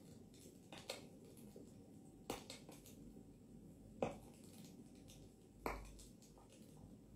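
Four sharp clicks, roughly a second and a half apart, over faint room tone; the loudest comes about four seconds in.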